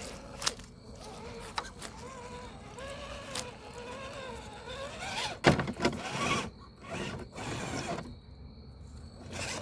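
RC4WD TF2 rock crawler's electric motor and gears whining, the pitch rising and falling with the throttle as it crawls, with scattered clicks and a loud clatter about five and a half seconds in.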